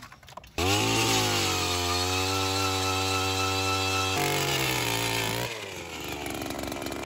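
Gas-powered two-stroke ice auger revving up and drilling into lake ice, its engine holding a steady high speed under load. About five and a half seconds in the engine drops to lower revs, and the sound cuts off abruptly at the end.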